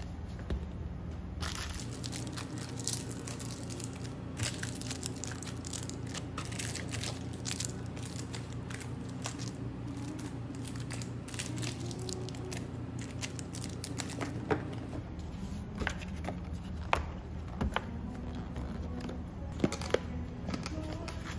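Thin clear plastic sandwich-box lids crinkling and clicking as they are handled and pressed shut onto kraft-paper sandwich boxes, with a few sharper snaps near the end. A steady low hum runs underneath.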